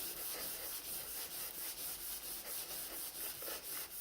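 Hand scrubbing of a metal shower fixture, rapid back-and-forth rubbing strokes at about four a second, to polish off hard-water deposits.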